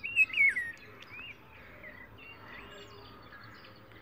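A bird chirping: a few short, gliding calls in quick succession in the first second, then fainter chirps over a low background hiss.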